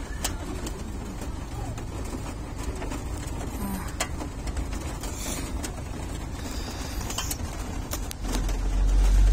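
Inside a moving car in heavy rain: rain on the roof and windows and tyre and road rumble make a steady noise, with scattered sharp clicks. About eight seconds in, the low rumble grows louder.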